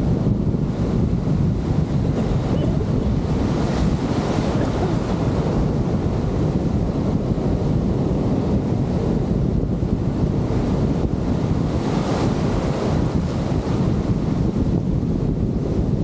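Wind buffeting the microphone with a heavy low rumble over the hiss of breaking, foaming surf; the surf hiss swells twice as waves wash in, about four and twelve seconds in.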